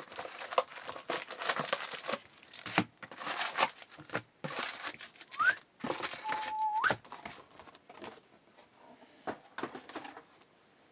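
Crinkling and rustling of foil card packs and cardboard as a hobby box of 2012 Topps Platinum football cards is emptied and its silver foil packs are handled and stacked, with a couple of short squeaks partway through. It goes quieter near the end, with a few light taps.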